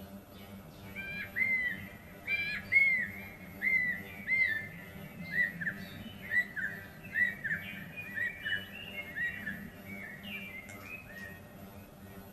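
A bird singing a run of short, arched whistled notes, about two a second, starting about a second in and thinning out near the end.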